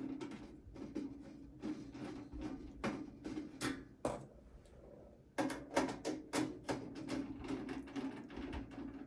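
Phillips screwdriver backing out the rear case screws of a Dell Inspiron 3847 desktop: a run of small clicks and ticks of metal and plastic, with a pause about four seconds in.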